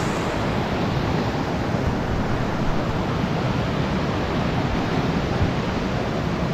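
Rushing water of a mountain stream, a steady even rush with no let-up.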